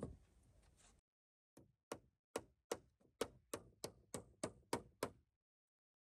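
A run of about a dozen sharp, evenly paced knocks, roughly three a second, starting about a second and a half in and stopping near the end, with dead silence between them.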